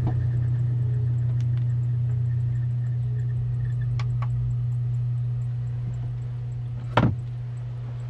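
Farm machine's engine idling, heard from inside its cab as a steady low drone that eases slightly near the end. A few faint clicks come about halfway through, and a single sharp knock comes near the end.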